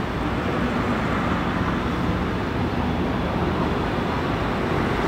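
Jet engines of an Airbus A319 running with a steady, even rumble as the airliner rolls out on the runway after touchdown.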